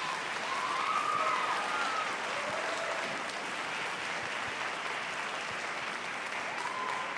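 Audience applauding steadily, with a few cheers rising over the clapping.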